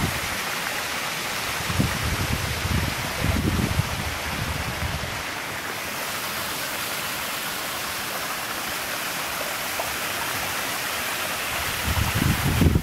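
Steady rushing of the Ripaljka waterfall in full flow. Low buffeting on the microphone comes a couple of seconds in and again near the end.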